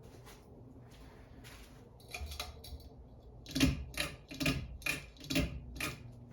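Harbor Breeze Asheville ceiling fan's pull-chain switch being clicked over and over, about six sharp clicks roughly two a second in the second half, over the low steady hum of the fan.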